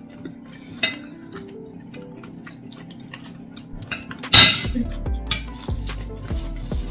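Cutlery and dishes clinking at the table during a meal, with one loud clatter about four seconds in.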